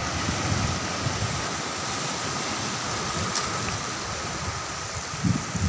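Sea waves washing over a rocky shore, a steady rushing hiss of surf.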